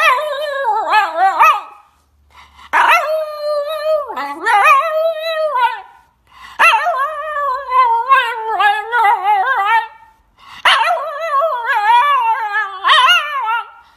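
Shiba Inu dog howling in long, wavering calls that rise and fall in pitch, four of them with short breaks between.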